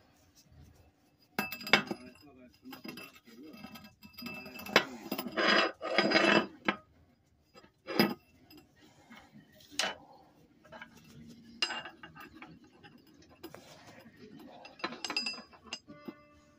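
Steel pipe with a hex end fitting being set down and handled on a steel work table: scattered metal clanks and knocks, with a longer clattering stretch near the middle.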